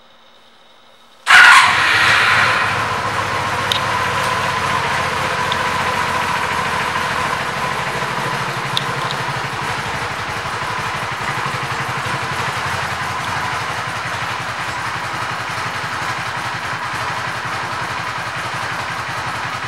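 A 2003 Honda Magna 750's liquid-cooled V4 engine fires up about a second in. It is loud for the first moment, then settles into a steady idle with an even pulsing beat.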